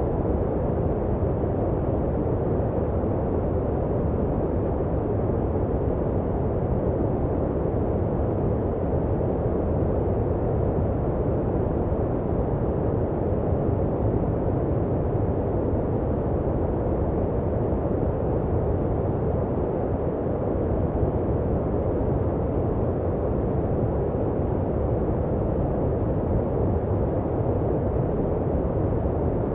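Steady, unchanging sleep noise: a deep, muffled hiss with its weight in the low register and almost no treble, closer to brown noise than to bright white noise. It runs at an even level with no changes.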